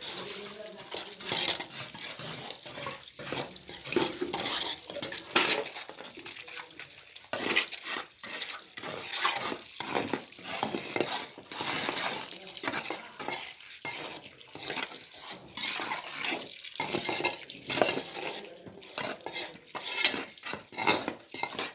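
Metal tools scraping and clinking through wet concrete mix during hand casting, with many irregular scrapes and knocks.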